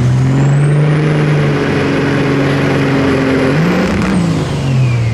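Street semi truck's diesel engine running hard at full throttle on a sled pull, with a high turbocharger whistle that climbs in the first second and holds. About four seconds in, the whistle cuts off and the engine note wavers up and back down, and the engine drops off right at the end.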